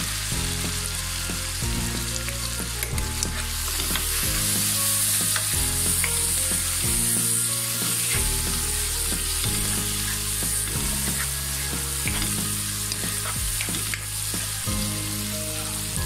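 Onions, chopped tomato and turmeric sizzling steadily in hot mustard oil in a wok, with a wooden spatula stirring and clicking against the pan now and then.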